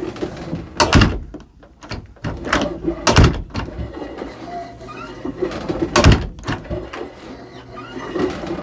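An interior door with a newly fitted knob and latch being shut against a freshly mortised strike plate, three sharp knocks as the latch catches. The handling noise of the door and knob fills the gaps between them.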